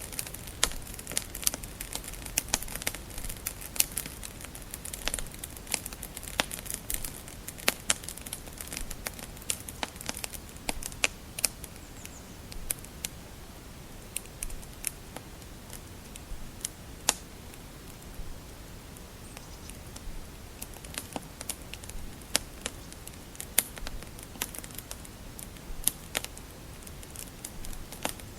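Wood fire crackling in a fireplace: irregular sharp pops and snaps over a steady low rumble of the flames, the snaps thicker in the first half.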